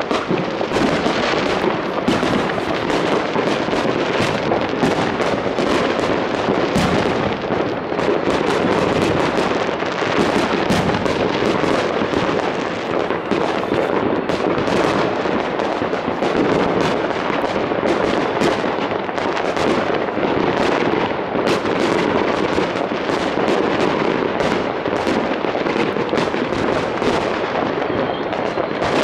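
Fireworks going off all around: a dense, unbroken crackle of many overlapping bangs and pops, with no let-up.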